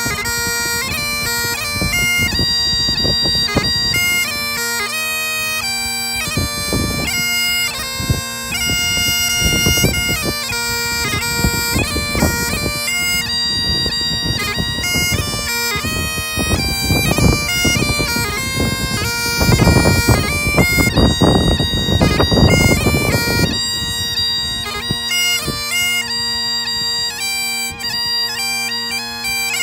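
Great Highland bagpipes played: steady drones under a chanter melody of held, changing notes. Gusts of low rumbling noise come through beneath the pipes, strongest a little past the middle.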